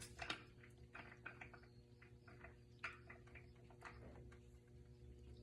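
Faint scattered clicks and light rattles of hands working at a MIG welder, feeding balled-up wire back through the feed, over a low steady hum.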